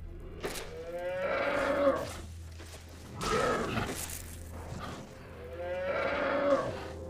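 A giant water buffalo creature lowing three times in long calls, lying pinned under helicopter wreckage.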